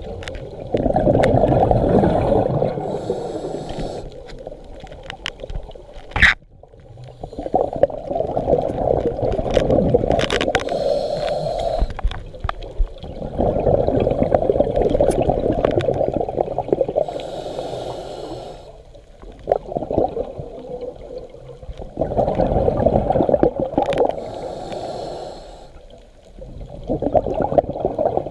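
Scuba diver breathing through a regulator underwater: each exhale a rush of bubbles lasting several seconds, each inhale a short hiss from the regulator, about four breaths in all. A sharp click about six seconds in.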